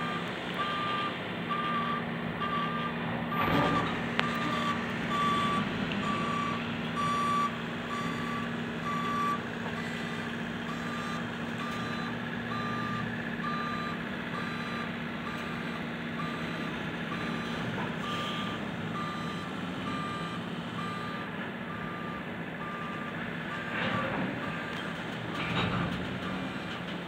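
Backup alarm on a slow-moving Herzog rail work train, beeping steadily at about one beep every three-quarters of a second, over a steady low machine drone. A few sharp knocks sound about three and a half seconds in and twice near the end.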